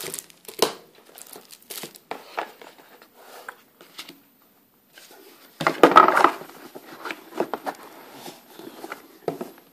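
Cardboard game box and cards being handled: short rustles, scrapes and taps of card and cardboard, with one longer, louder scrape about six seconds in as the box lid slides on.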